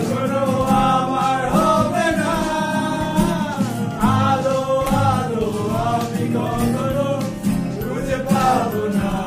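A group of men singing a song together, holding long notes.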